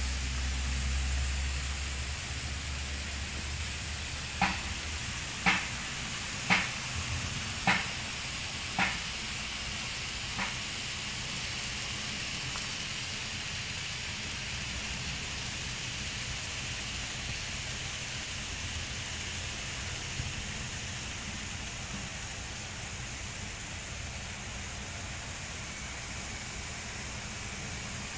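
Kato N scale model train running on Kato track: a faint steady whir under an even hiss. Six sharp clicks come about a second apart in the first third.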